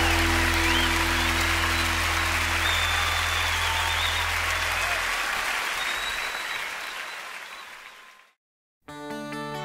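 Live audience applause over the last held notes of a song; the notes die away about five seconds in and the applause fades out. After a short silence, guitar music begins near the end.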